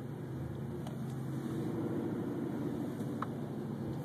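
Road noise inside a moving car on a wet road: a steady low engine and tyre hum with faint hiss, swelling a little from about a second in.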